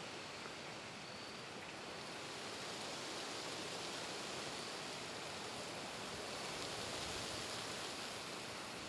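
Wind blowing through leafy shrubs and trees, a steady rushing rustle that swells a little about seven seconds in.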